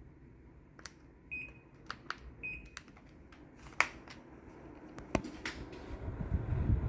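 Two short, high electronic beeps about a second apart, of the kind an air conditioner's indoor unit gives when it takes a remote command, among scattered sharp clicks and knocks. A low rumble like wind on the microphone builds near the end.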